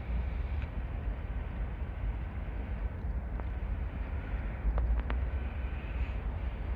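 Low, steady rumble of an approaching Norfolk Southern diesel freight locomotive hauling tank cars, with two faint clicks about five seconds in.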